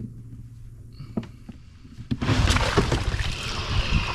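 Wet floating water plants and shallow water rustling, crackling and splashing as hands tear through the plant mat. It starts loud and dense about two seconds in; before that there is only a faint low steady hum.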